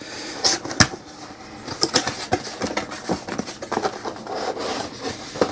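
Cardboard packaging being opened by hand: the lid and flaps rub, scrape and are folded back, with a few sharp taps of card about a second in.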